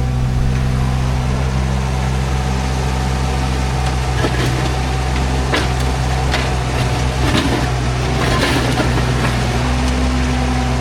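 An engine running steadily at an even speed, with a few sharp knocks or clanks from about halfway through.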